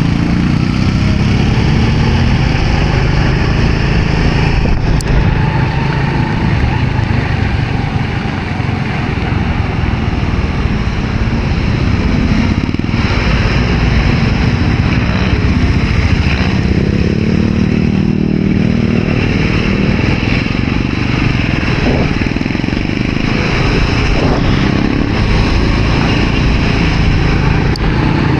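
Honda RSX 110 underbone motorcycle's small single-cylinder four-stroke engine running while under way, its note rising and falling a few times with the throttle, over a constant rush of wind and road noise.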